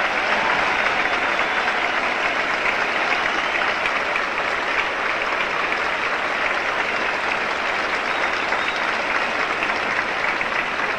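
Tennis crowd applauding, a dense, steady clapping that keeps up without a break.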